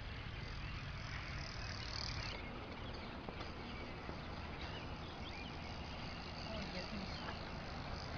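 Steady outdoor background of insects trilling high over a faint hiss. The trill is strongest for the first couple of seconds.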